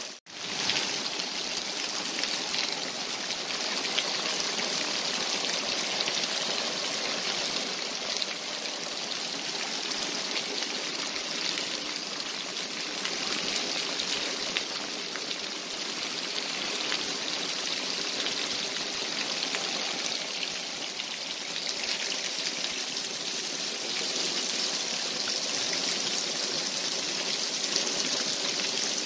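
Heavy rain falling steadily on a wet concrete yard: a dense, even hiss of drops and splashing. The sound cuts out for a moment just after the start.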